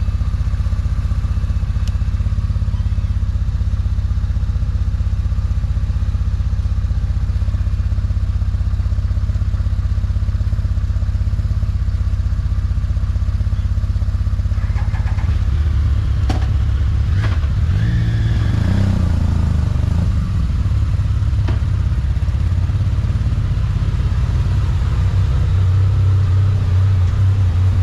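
Motorcycle engine running steadily while riding, a loud low drone; around the middle the engine note shifts up and down for several seconds.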